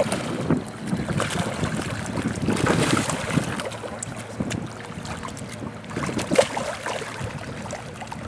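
Hooked carp thrashing and splashing at the water's surface as it is played toward the bank, in irregular splashes with one sharp, louder splash about six seconds in.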